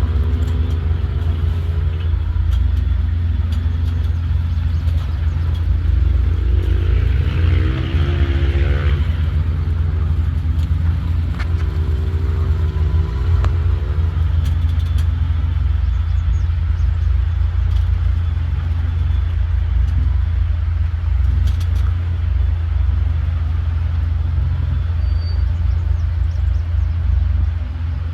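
Off-road truck's engine running under load with a heavy low rumble, revving up in pitch twice in the middle, as on a hill climb or obstacle.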